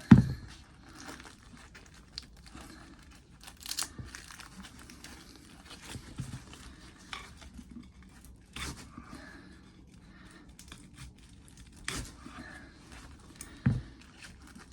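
Screwdriver prying and scraping at a dishwasher motor's parts: scattered clicks and scrapes, with a sharp knock right at the start and a few louder clicks spread through.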